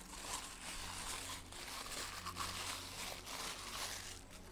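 Thin white plastic wrapping crinkling and rustling as it is pulled off a new rifle grip by hand: a steady run of small crackles.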